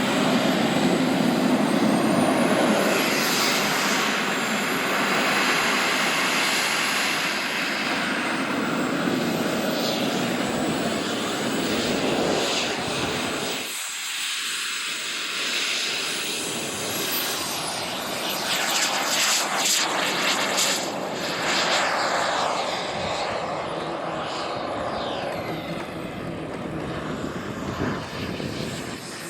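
Turbine engines of radio-controlled model jets in flight: a loud rushing roar with a thin high whine that slides up and down in pitch as the jets pass. The low end drops out abruptly about 14 seconds in, then the engine noise carries on.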